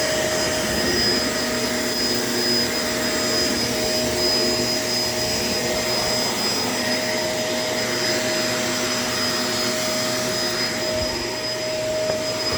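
Shark LA702 vacuum cleaner running steadily, a constant motor whine over rushing airflow as it picks up dirt from the floor.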